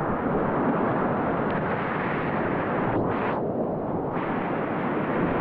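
Whitewater rapid rushing, a loud, steady roar of churning water close to the microphone, turning duller for about a second midway.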